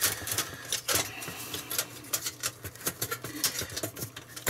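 Irregular clicks, taps and scrapes of a circuit board being worked loose and shifted inside the sheet-metal chassis of a Sky TV receiver box, with a sharper knock about a second in.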